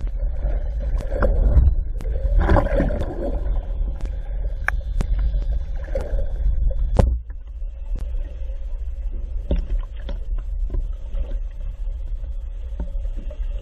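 Muffled underwater rumble picked up through a GoPro's waterproof housing, with scattered sharp clicks. It is fuller and louder at first, then drops about seven seconds in to a quieter, steadier hum.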